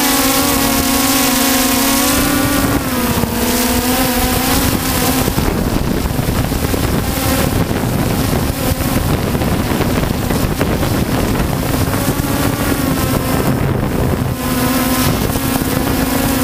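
DJI Phantom 2 quadcopter's electric motors and propellers humming steadily, heard close up from the camera it carries, with wind on the microphone. The hum drops in pitch about three seconds in and turns to rougher noise for several seconds in the middle as the drone comes down. A steady hum returns near the end.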